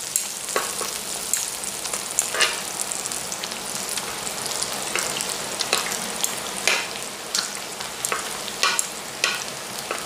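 Pork, kimchi and mushrooms sizzling on a round griddle pan, with frequent short clicks and scrapes of metal tongs turning the food against the pan.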